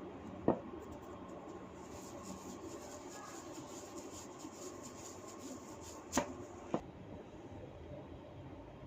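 Three sharp cracks from hair and neck cracking during a head massage: one shortly after the start and two close together later on. Between them runs a faint crackling rustle of hair being worked.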